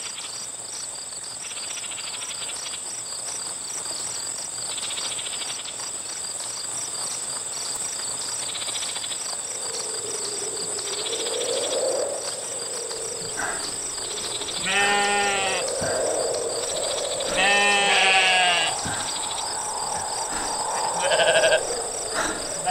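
Crickets chirping in a steady, pulsing chorus. About halfway through, bleating livestock join in with two calls, each about a second long, and a shorter call comes near the end.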